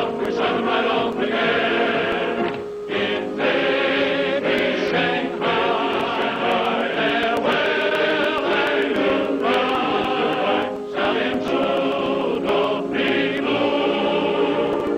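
Choral music: a choir singing in sustained chords over a steady low note.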